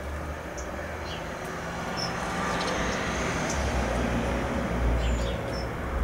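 A few short, high chirps from house sparrows over a steady low rumble that swells toward the middle and eases off near the end.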